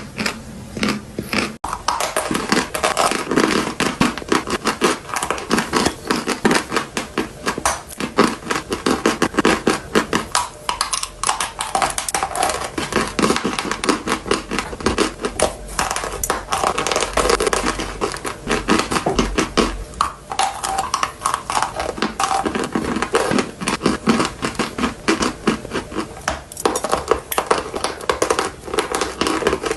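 Close-miked chewing and biting of dry gym chalk: a dense, continuous run of crisp crunches and crackles.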